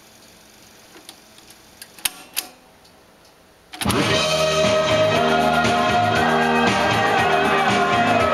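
A few sharp mechanical clicks, then music starts abruptly and plays loudly from a tape in a 1976 Magnavox cassette player, running again on new drive belts.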